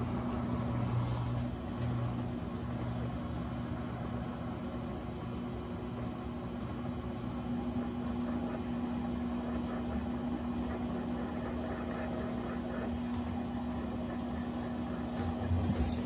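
Electrolux LAC17 top-load washing machine spinning its basket of laundry, running with a steady hum.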